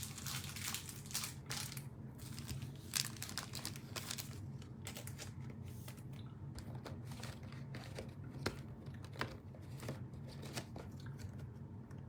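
Thin plastic crinkling and rustling in short, irregular bursts as a trading card is handled and slid into a soft plastic penny sleeve, over a low steady hum.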